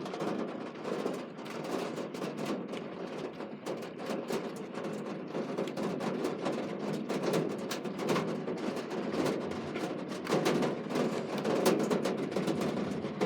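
Thunderstorm noise, with thunder and rain: a continuous crackling clatter of many sharp ticks and cracks, growing louder about ten seconds in.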